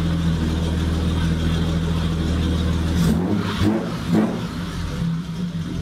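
BMW 730i E32's 3.0-litre M30 straight-six idling steadily, just after a new crankshaft impulse sensor has been fitted to cure rough warm starts. The idle is broken about halfway by a few clicks and knocks before the steady running returns.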